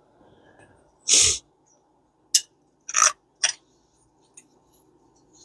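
Parts of a vintage Mitchell spinning reel being handled: a short, loud scraping rustle about a second in, then three sharp clicks about half a second apart.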